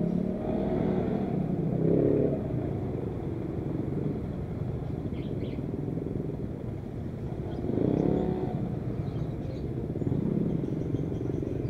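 Small 50cc two-stroke automatic scooter engine running under way, revving up and easing off several times: surges at the start and about 2, 8 and 10 seconds in.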